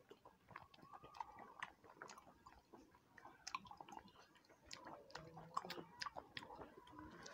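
Faint chewing of food, with scattered small mouth clicks.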